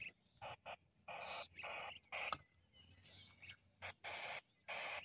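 A series of short scraping and rustling bursts from hands working dry soil and grass while planting a tree seedling, with one sharp click a little past two seconds in.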